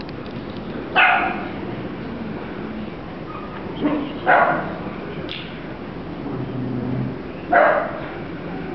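A dachshund barking three times, single sharp barks about three seconds apart, with a softer bark just before the second.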